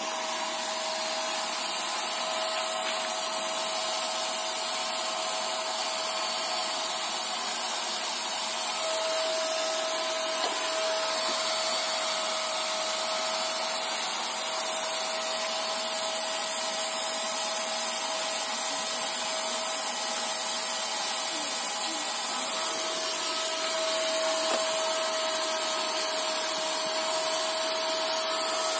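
INGCO electric paint spray gun running steadily: its motor unit gives a constant whine, with the hiss of air and paint spraying from the gun's nozzle.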